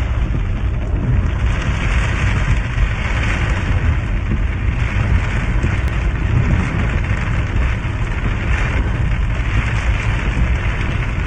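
Heavy rain falling in a steady downpour, with a constant low rumble underneath.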